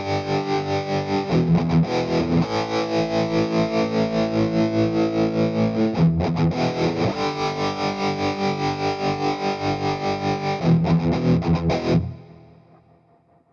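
Electric guitar played through the Playwell Tank-G multi-effects unit on preset 8B: distorted, sustained chords with a fast pulsing in the volume, changing chord several times. The last chord stops about twelve seconds in and fades away.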